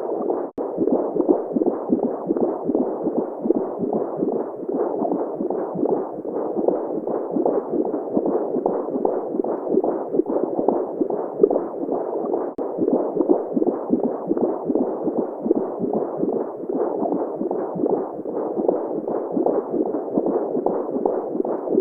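Womb-sound recording: a muffled, whooshing noise with a pulsing heartbeat running through it, with nothing high-pitched in it. It cuts out for an instant about half a second in and again around twelve seconds in.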